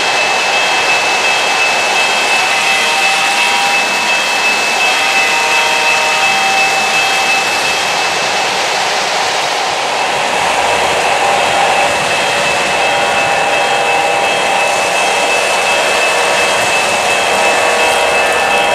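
Three-rail O-gauge model trains running on the layout's track: a steady rolling rush of wheels on rails with a constant high whine and shorter tones that come and go.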